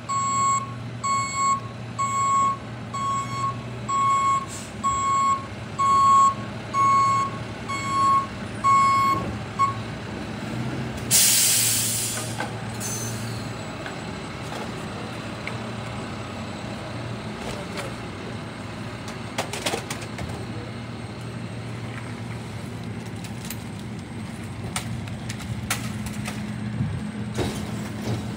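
Rear-loader garbage truck backing up, its reversing alarm beeping steadily about three times every two seconds. The beeping stops about ten seconds in, and a second later the air brakes let out a short hiss. After that the engine idles steadily, with a few faint knocks.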